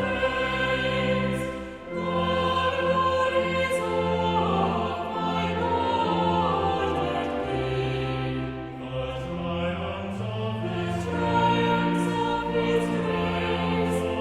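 Choral music: a choir singing a slow piece over sustained low notes that change every second or two.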